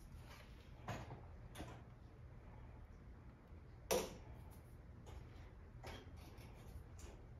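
Scattered light taps and clicks of tools and small parts being handled during work on an espresso machine's electrics, with one sharper knock about four seconds in, over a low steady hum.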